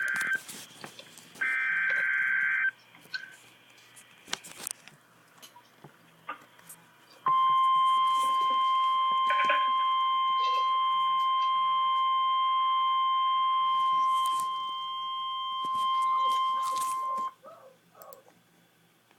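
Emergency Alert System weather alert as broadcast on weather radio. It opens with short bursts of warbling digital header data, then there are a few seconds of crackling static. About seven seconds in comes the single steady warning alarm tone, which sounds for about ten seconds and briefly fades once before cutting off.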